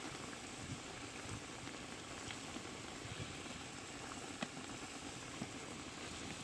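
Beef tripe boiling in water in a wide metal pan: a steady bubbling hiss with a few small scattered pops.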